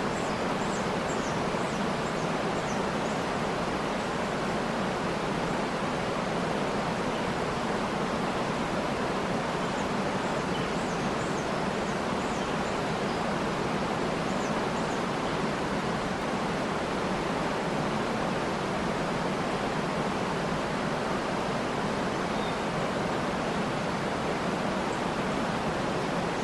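Waterfall rushing steadily, with faint high bird chirps in short runs near the start and again about halfway through.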